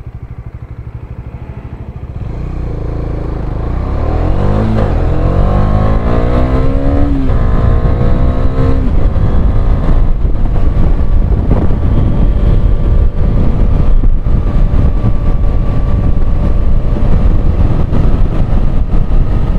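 Motorcycle engine accelerating hard from low speed, its pitch rising and dropping back at each upshift. Then it runs steadily at speed under a heavy rush of wind noise.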